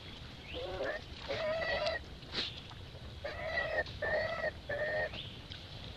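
Infant macaque crying: about five short, high, wavering calls, two in the first two seconds and then three in quick succession around the middle.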